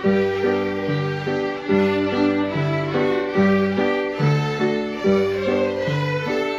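Small group of fiddles playing a tune together. Each bowed note is held briefly before stepping to the next, over a steady pulse.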